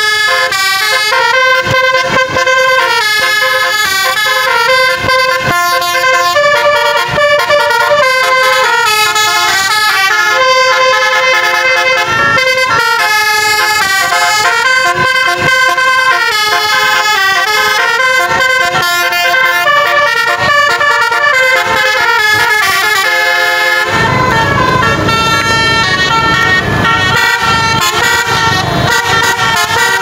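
Telolet basuri multi-tone bus horn playing a melody, note after note. A low rumble joins about 24 seconds in as the bus draws close.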